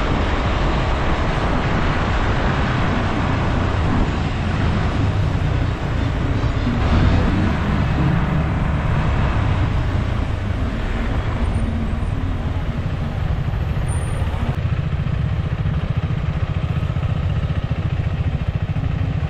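KTM 390 Adventure's single-cylinder engine running steadily under way, under a loud, steady rush of wind and road noise.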